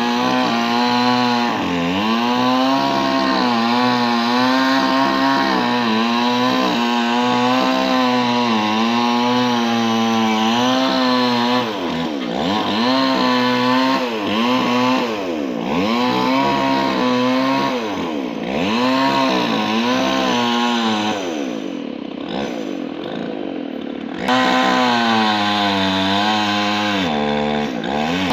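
Chainsaw running at high speed while cutting wood, its pitch repeatedly sagging and recovering under load. Past the middle it revs up and down several times, then drops to a lower, quieter note for about two seconds before coming back to full speed.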